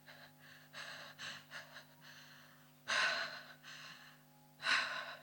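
A person breathing in soft, breathy gasps: a few quick short breaths, then two louder gasps about three and five seconds in.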